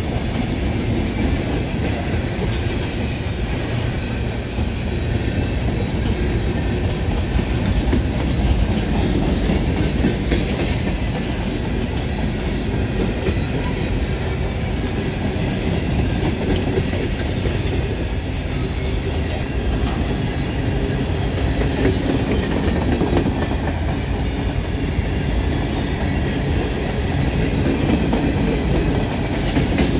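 Open-top freight hopper cars rolling past: a steady rumble and clatter of steel wheels on the rails.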